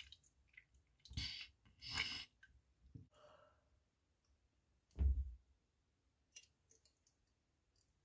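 A person's mouth and breathing sounds while nauseous: two short breathy sighs, a fainter breath, then one louder, deeper burst about five seconds in, followed by a few faint wet clicks.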